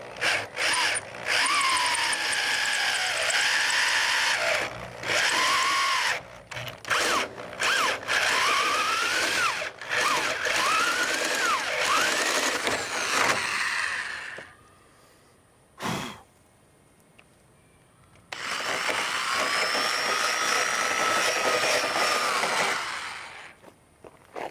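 Power drill boring a 1-inch hole through a car's sheet-steel body, run in repeated bursts with its whine sweeping up and down in pitch. It stops for a few seconds past the halfway point, with a single click, then runs again steadily for about five seconds.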